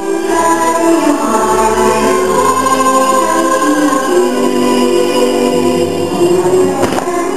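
Choral music: a choir singing held notes over musical accompaniment.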